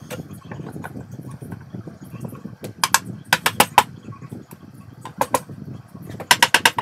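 Quick runs of loud, sharp knocks, four or five in under a second, about three seconds in and again near the end, over a low steady rumble.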